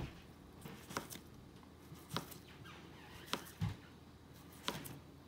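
Chef's knife slicing ring bologna on a plastic cutting board: a short, sharp knock each time the blade comes down through the sausage onto the board, about once a second.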